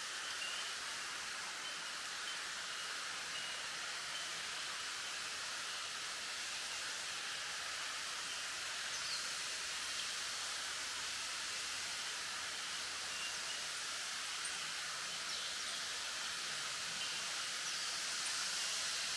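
Wind blowing through a bamboo grove, the leaves rustling in a steady hiss, with a faint high bell tone fading out near the start.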